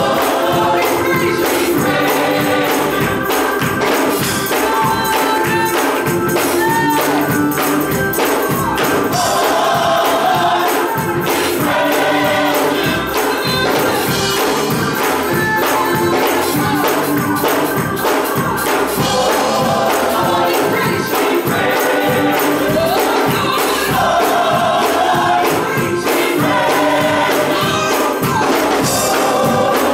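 Gospel choir singing to music, with a tambourine keeping a steady beat.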